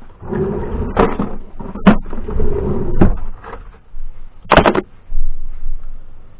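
A wooden drawer sliding on its runners twice with a scraping rumble, with several sharp knocks of wood on wood; the loudest knock comes about four and a half seconds in.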